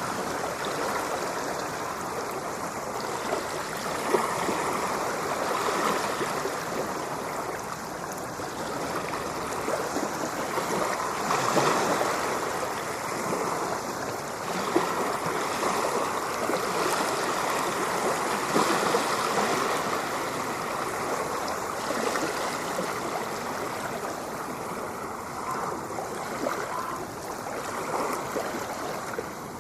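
Steady rush of ocean water washing and splashing, rising and falling a little every few seconds.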